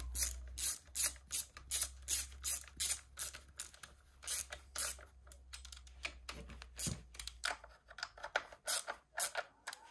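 Ratchet wrench worked in quick short strokes on engine bolts, its pawl giving a run of buzzing clicks about two or three times a second, with a short pause about halfway through.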